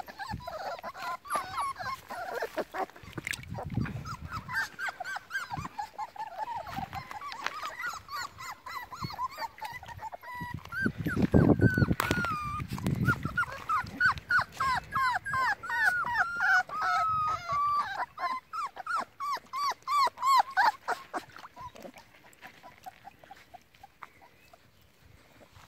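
Young puppies whimpering and whining, a rapid string of short, high-pitched squeaky cries, several a second, thickest in the second half and dying away near the end. A louder low rumble comes about eleven seconds in.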